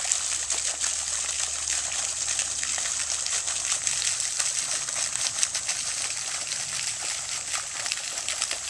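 Garden fountain: a single vertical jet of water spraying up and falling back into a round stone basin, a steady splashing gush.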